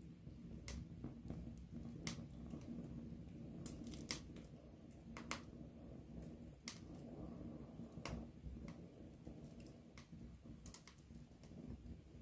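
Wood campfire burning close up: a low, unsteady rumble of flames with irregular sharp crackles and pops from the burning wood, the loudest snaps about four seconds in.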